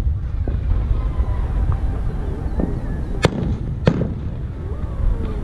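Fireworks bursting in the air: two sharp bangs a little over three seconds in, about half a second apart, with fainter pops before and after over a steady low rumble.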